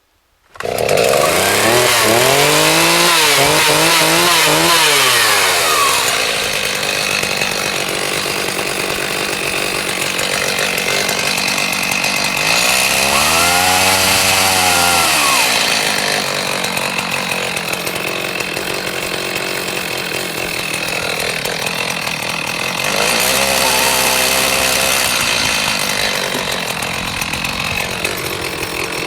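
A chainsaw starts running about half a second in and is revved up and down three times, with steady running in between, as it scores marks into a firewood log.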